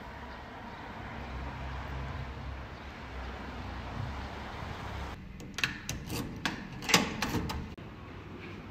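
A steady low outdoor rumble for about five seconds. It then gives way to a quieter background with a quick run of sharp clicks and knocks, the loudest about seven seconds in.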